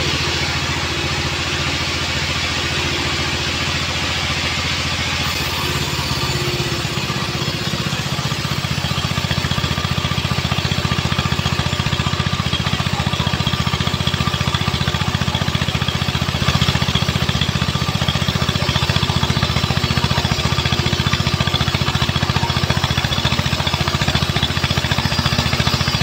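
Sawmill band saw running steadily with a low machine hum. From about eight seconds in it grows louder as the blade rips lengthwise through a weru log.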